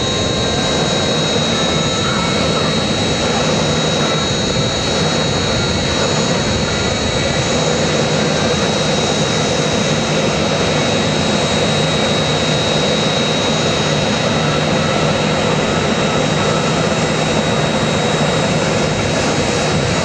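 Jet engine running steadily: a loud, even roar with a high, steady whine that holds unchanged.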